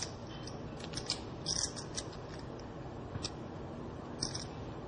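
Poker chips clicking against each other as a player handles a stack of chips at the table. The clicks are sharp and irregular, some single and some in short clusters.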